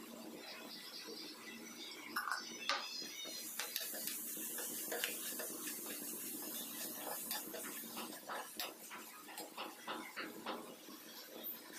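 Metal spoon scraping and clinking against a frying pan while onions and egg are stirred and scrambled, with a hiss of frying from about three to six seconds in.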